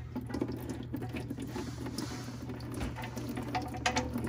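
Hot engine oil dribbling and pattering into a drain pan as the drain plug on the Cummins diesel's oil pan is worked loose, with small scattered clicks over a low steady hum.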